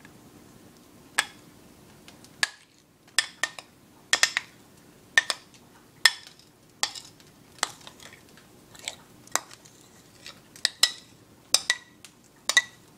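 Metal spoon clinking and scraping against a bowl, about fifteen sharp clinks one or two a second, as thick cheese sauce is scraped out of it.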